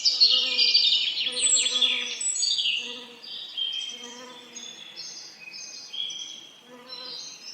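Several songbirds singing at once with quick chirps and trills, busiest in the first two seconds, over a low buzzing of bees that swells and fades about once a second.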